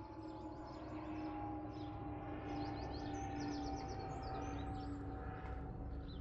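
Birds chirping and singing in outdoor ambience, over a steady drone that slowly sinks in pitch and a low rumble.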